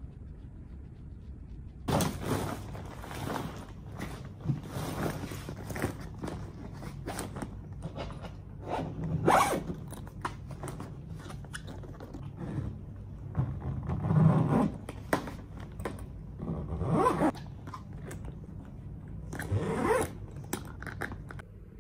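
A run of irregular rustling, scraping swishes, some brief and some lasting over a second, with a few sharp knocks among them.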